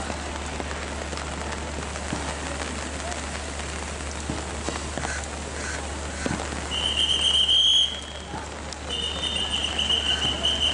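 Steady rain falling, with a shrill high whistle blown twice in the second half, each blast lasting about one to two seconds.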